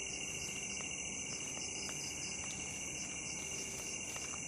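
Night chorus of crickets and other insects: a fast pulsing trill with a higher continuous buzz above it, with a few faint clicks.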